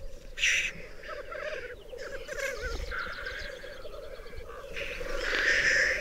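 Black grouse at a lek: a continuous low bubbling song, with a short hissing call about half a second in and a louder, longer hiss near the end.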